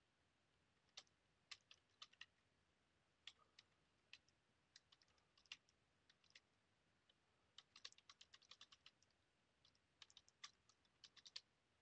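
Faint computer keyboard typing in short bursts of rapid key clicks, with brief pauses between the bursts.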